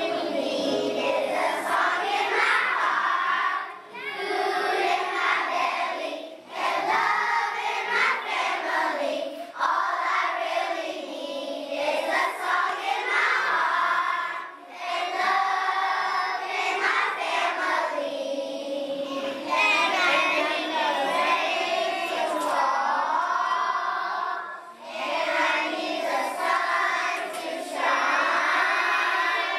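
A group of young children singing a song together, in phrases of a few seconds with short breaks between them.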